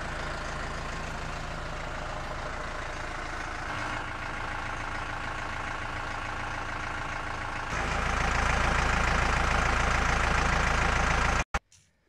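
Massey Ferguson 2435 tractor's diesel engine idling steadily. It gets louder about eight seconds in, then cuts off abruptly just before the end.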